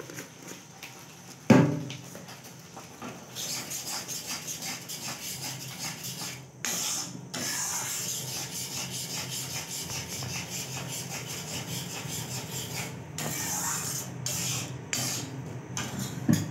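A flat spatula scraping and stirring thick masala paste around a wok, with the paste sizzling as it fries. There is a single knock about a second and a half in.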